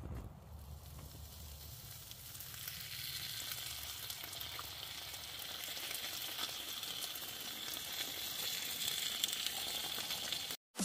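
Meat sizzling on a small grill rack over a portable gas stove: a steady hiss with small crackles that starts about two seconds in and grows gradually louder.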